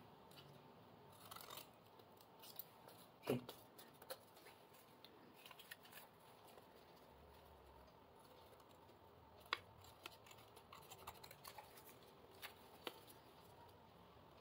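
Scissors cutting through coloured paper in faint, scattered snips and clicks, with a few louder snips, the loudest about three seconds in.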